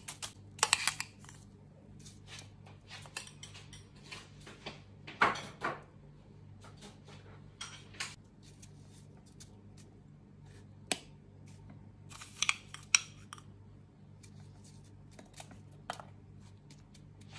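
Metal spoon scooping coarse shaved ice and dropping it into a glass dessert bowl: scattered crunches, scrapes and light clinks, with louder clusters about a second in, around five seconds in and around twelve seconds in.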